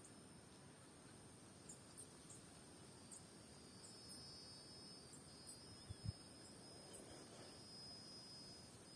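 Near silence: faint outdoor ambience with short, faint high-pitched chirps about once a second and two low thumps about six seconds in.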